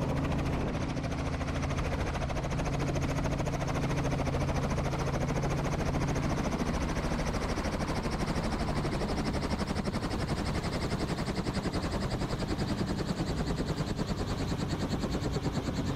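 Robinson R44 helicopter running on the ground just after setting down, engine and main rotor turning with a steady drone. The rhythmic chop of the blades grows more distinct in the second half.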